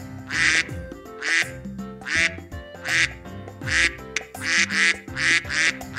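Duck quacking repeatedly, about one quack a second, over background music.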